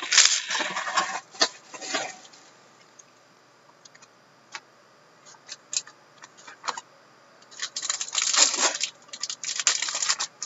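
Wrapped hockey card packs being handled and torn open, their wrappers crinkling and tearing in loud bursts about a second long at the start and again in the last few seconds, with a few small clicks and rustles in the quieter stretch between.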